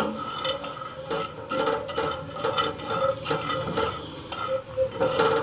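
Wooden spatula stirring and scraping chopped cashews and almonds around a non-stick kadhai in a little ghee, with irregular light scrapes and knocks and a sharp knock right at the start. A faint steady hum runs underneath.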